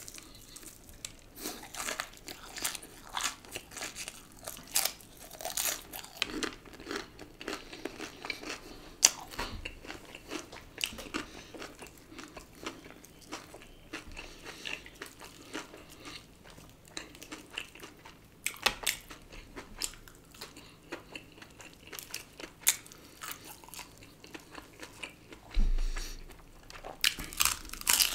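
Close-up crunching bites and chewing of a crispy fried chicken thigh piece, the breaded coating crackling sharply in irregular bursts. A low dull bump comes near the end.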